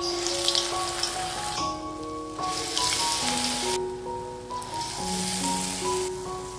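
Medu vada batter deep-frying in hot oil: a loud sizzle that starts sharply as the batter goes in and rises and falls in waves, with soft piano music underneath.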